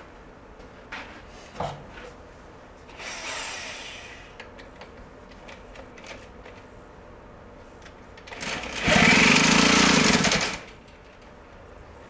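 Handheld power drill run in a loud burst of about two seconds near the end, drilling hard plug material out of a carburetor vent passage. A fainter noise comes about three seconds in, with small clicks of handling between.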